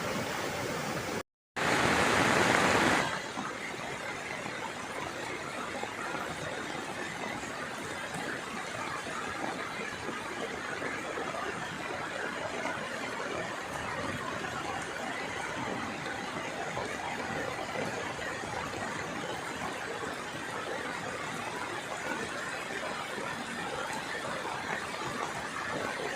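Steady rushing of fast-flowing floodwater. A brief dropout comes about a second in, followed by a louder stretch of about two seconds before the rush settles to an even level.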